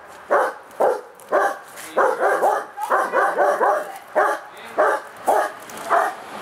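German shepherd barking repeatedly at a decoy in protection training, about two barks a second, some in quick runs of two or three.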